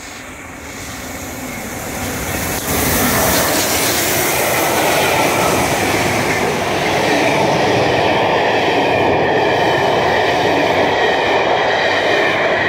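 Peppercorn A1 Pacific steam locomotive Tornado and its train passing through at speed. The rail noise grows over the first couple of seconds, jumps suddenly about two and a half seconds in, then holds loud and steady as the train runs by.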